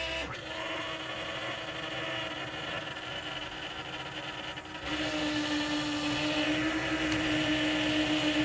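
Electric fuel pumps of an LS1-swapped airplane running with a steady whine, switched on before engine start. The whine gets louder about five seconds in.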